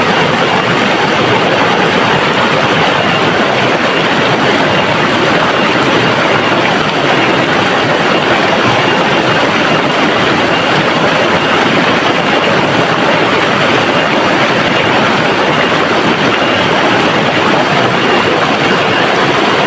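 River water rushing and splashing, a steady, loud, unbroken wash of noise.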